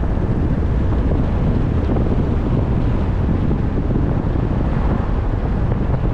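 Steady low rumble of a car driving, with road noise and wind buffeting the camera microphone.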